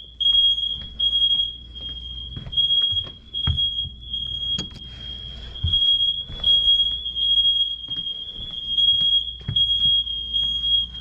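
Interconnected household smoke alarms sounding during a system test: one shrill, high-pitched alarm tone that pulses in loudness and hardly breaks. A few light knocks are heard over it.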